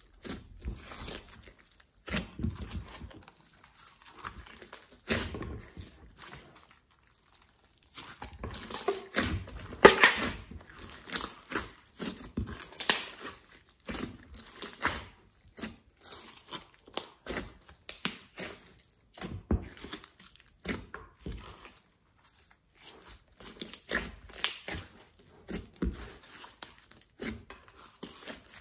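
Glossy slime being squeezed, stretched and kneaded by hand in a glass dish, making an irregular run of sticky crackles and squelches. There is a short lull about seven seconds in, and the loudest crackle comes about ten seconds in.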